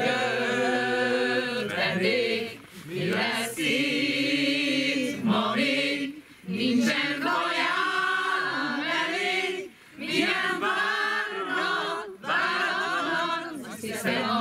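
A mixed group of men's and women's voices singing together without accompaniment. The singing comes in phrases broken by short pauses every few seconds.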